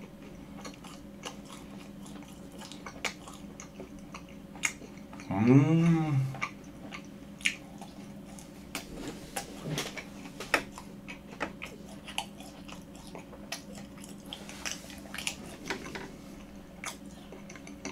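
Close-miked chewing of a soft, chewy macaron, with wet mouth clicks and smacks throughout. About five seconds in comes a brief hum that rises and falls in pitch, the loudest sound.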